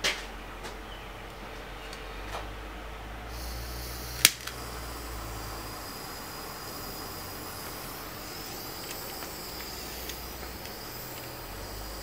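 A few short clicks over a steady low hum and faint hiss, with one sharp, much louder click about four seconds in.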